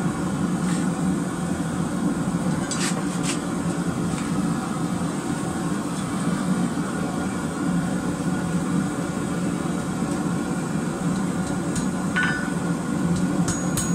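Gas forge burner running steadily. A few light metal clinks come in the first few seconds, and near the end hammer blows ring on the steel anvil as twisted rebar is straightened.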